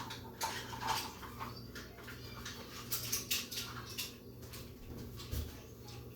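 Scattered light clinks and knocks of kitchenware being handled, over a steady low hum.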